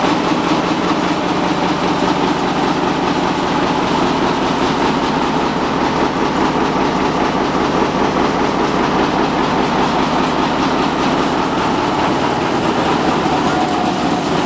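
Large multi-cylinder stationary diesel engine running steadily at a loud, even pace.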